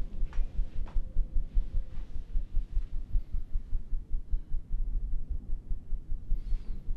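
Low, uneven throbbing rumble from the film's sound design, pulsing several times a second under a faint steady hum, with a couple of faint clicks in the first second.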